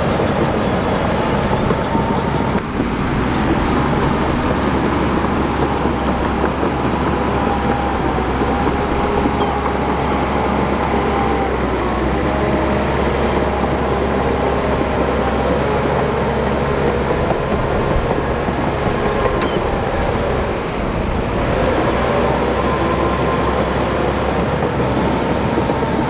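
Shantui DH17 crawler bulldozer's diesel engine running steadily under load as the blade pushes dirt and rocks.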